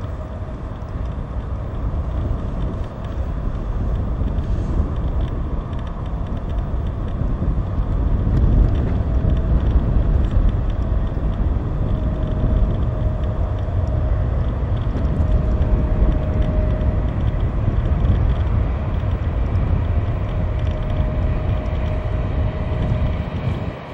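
Rolls-Royce Trent XWB jet engines of an Airbus A350 on final approach: a steady rumble with a faint intermittent whine, getting louder about eight seconds in as the airliner nears. Heavy wind buffets the microphone in strong storm crosswind.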